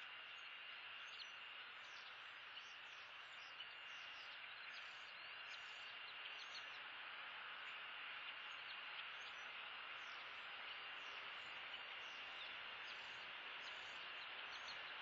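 Faint outdoor ambience: a steady hiss with a thin, steady high tone and many quick, high chirps scattered throughout.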